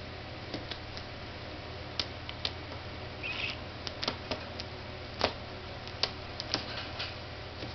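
A 23-day-old cockatiel chick's claws clicking on a wooden tabletop as it totters about, unsteady on its feet: a scatter of irregular ticks, the loudest about five seconds in, with a brief scratchy sound a little after three seconds.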